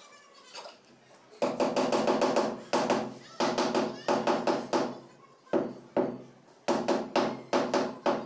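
A mallet tapping a ceramic floor tile down into its mortar bed: quick runs of sharp taps in bursts with short pauses between, starting about a second and a half in.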